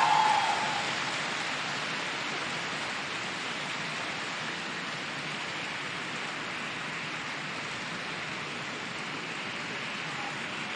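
Choral music fading out in the first second, then steady audience applause.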